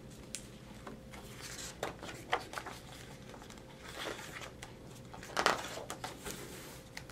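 Pages of a hardcover picture book being turned by hand: a few short papery swishes and rustles.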